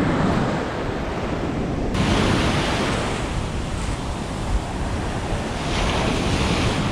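Ocean surf breaking and washing up the sand around the angler's feet: a steady rush of whitewater that swells about two seconds in and again near the end.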